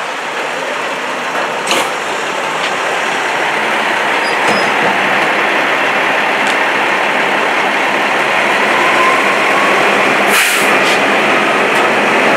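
Large structure fire burning with a steady, loud rushing roar that slowly grows louder, broken by two sharp cracks, about two seconds in and about ten seconds in.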